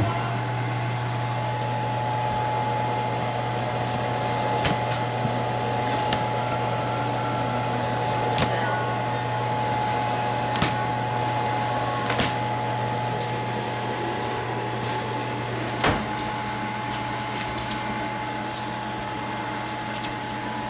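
Whirlpool WMH53520AS over-the-range microwave running: a steady low hum and a thin steady whine over steady fan noise, with sharp clicks every couple of seconds.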